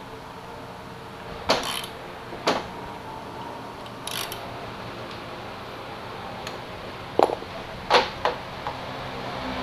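Metal tools and pins clinking and knocking against a scooter's engine hanger as a bushing tool is set up: about six sharp, separate clinks at uneven intervals, the loudest pair a little before the end.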